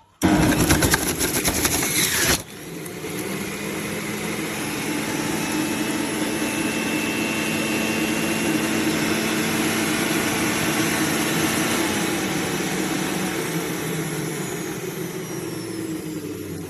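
Electric juicer running: it starts abruptly with about two seconds of loud grinding, then settles into a steady motor hum that cuts off at the end.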